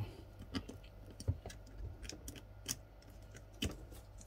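Scattered light clicks and taps of a thin tool and gloved fingers working at a hall sensor slot in an e-scooter hub motor's copper-wound stator. The clicks are uneven and spaced a half-second to a second apart, the sharpest about a second in and near the end.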